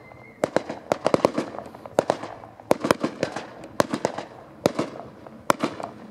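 Aerial fireworks going off, an uneven run of sharp bangs, some in quick clusters of several a second, thinning out toward the end.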